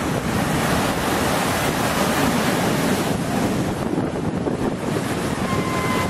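Storm waves crashing over a seawall and floodwater rushing through a flooded street, a steady heavy rush of surf, with wind buffeting the microphone.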